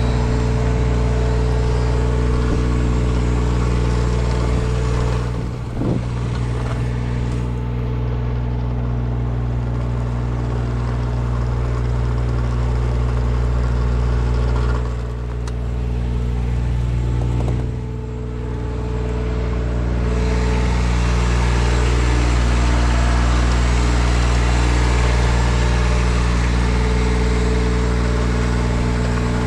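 An engine running steadily at a constant speed, with a hissing rush over it that fades out about seven seconds in and comes back about twenty seconds in.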